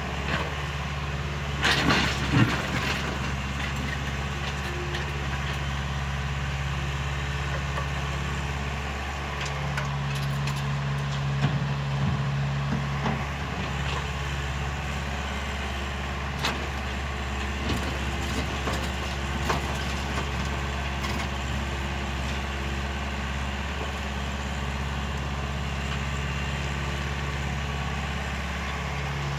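JCB JS81 tracked excavator's diesel engine running steadily under hydraulic load, its hum growing stronger for several seconds in the middle, while it loads a dump truck. Rock and soil knock and clatter against the bucket and the truck's steel bed, loudest about two seconds in, with scattered further knocks later.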